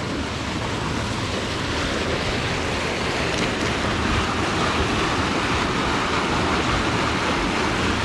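Water rushing over rocks at a waterfall and rapids, a steady rush that grows a little louder about halfway through.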